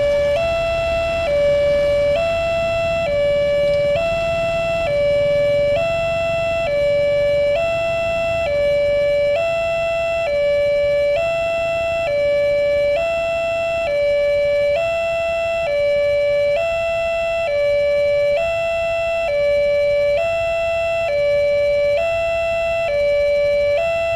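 Electronic warning siren of a railway level crossing, alternating between a lower and a higher tone about every 0.8 seconds in a steady hi-lo pattern. It is the alarm that sounds while the crossing is closed for an approaching train.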